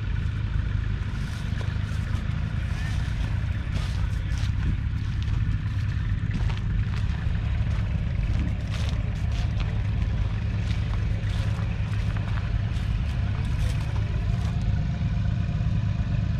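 Allis-Chalmers ED40's 2.3-litre four-cylinder diesel engine running steadily, with scattered short clicks above its low, even note.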